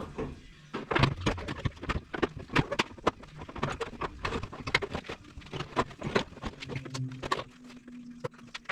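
A rapid, irregular run of clicks and light knocks from motorcycle parts being handled during work on the bike. A faint steady hum comes in near the end.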